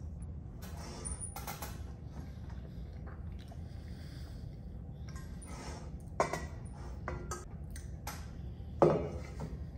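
A metal spoon scraping and clinking against a stainless steel bowl while eating, with two sharper knocks about six and nine seconds in, the second the loudest.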